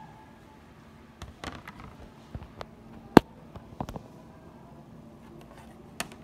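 Handling noise from a phone camera being moved and set down: a cluster of irregular knocks and clicks, the loudest a single sharp click about three seconds in and one more near the end, over a faint steady low hum.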